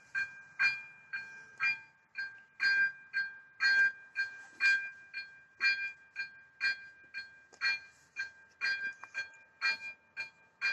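Czech AŽD 97 level-crossing warning bell ringing, its electronic strikes coming evenly about twice a second, signalling that a train is approaching.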